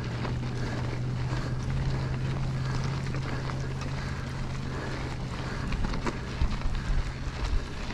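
Mountain bike rolling fast down a dry dirt and gravel track: tyres on the loose surface give a steady low hum with scattered gravel clicks, mixed with wind noise on the microphone. From about six seconds in the ride gets rougher, with short jolts and rattles.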